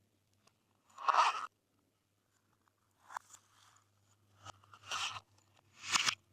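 Glossy slime being squeezed and mixed by hand, giving short crackling, popping squelches in four separate bursts; the first, about a second in, is the loudest.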